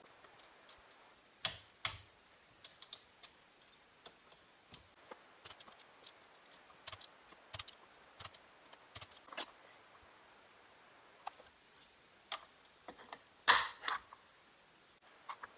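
Scattered light clicks and taps of small parts being handled during fitting of the steering wheel's horn button, with a louder clatter near the end.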